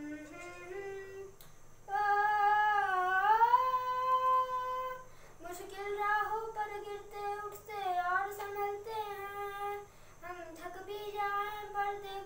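A young boy singing a melody unaccompanied. After a soft opening phrase comes a loud, long-held note about two seconds in that dips and then rises in pitch, followed by shorter sung phrases.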